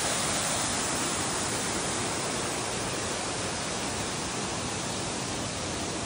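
Waterfall and river water rushing steadily, an even unbroken rush.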